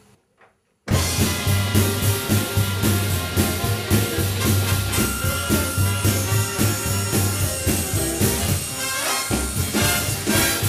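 Background music with brass and drums in a swing-jazz style, cutting in suddenly about a second in after near silence.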